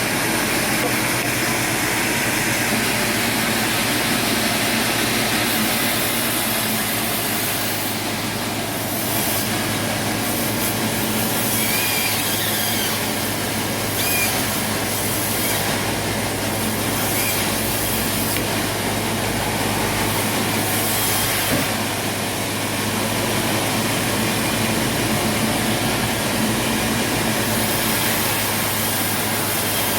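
Sawmill machinery running steadily, a constant mechanical hum under a wash of noise.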